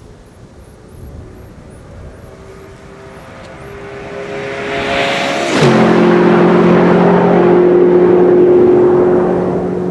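A performance car passing by at speed: its engine note grows louder as it approaches, drops sharply in pitch as it goes past about five and a half seconds in, then holds a steady lower note as it moves away.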